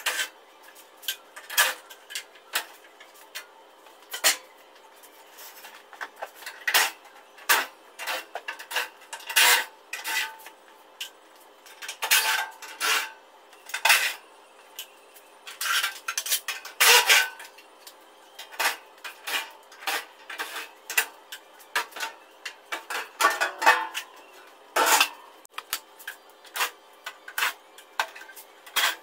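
Irregular metallic clinks and clanks of hand tools against the metal panels and parts of an air-conditioning outdoor unit being dismantled.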